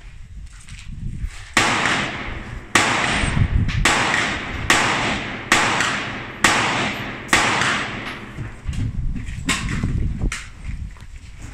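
A string of about ten rifle shots at a steady pace of roughly one a second, each sharp crack followed by a ringing echo. The last three are quieter.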